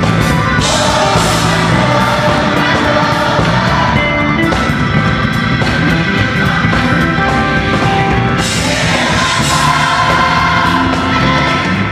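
Gospel choir singing with live band accompaniment, loud and continuous.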